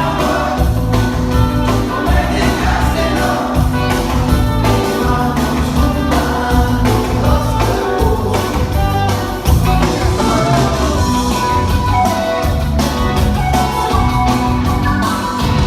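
Loud party music with singing over a steady, driving beat and heavy bass.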